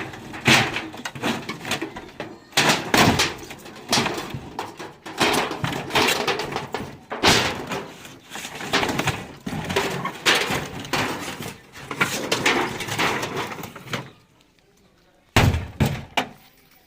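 A refrigerator being smashed: repeated heavy blows about one a second, each a crash of metal and plastic with rattling after it. Near the end there is a pause of about a second, then two more blows.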